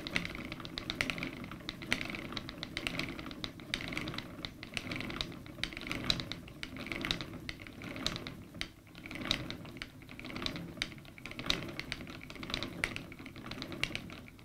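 Wooden treadle spinning wheel spinning wool: a rhythmic clatter of small clicks and knocks from the treadle and turning wheel over a low whir, swelling and easing with each push of the treadle.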